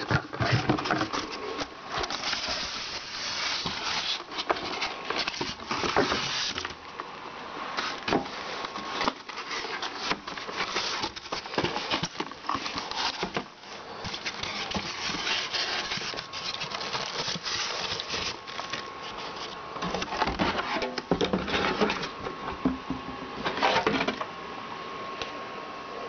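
Unpacking sounds: a cardboard box, plastic wrapping and the white plastic base and tank of a cool-mist humidifier being handled, giving continual rustling and scraping with irregular knocks and clicks.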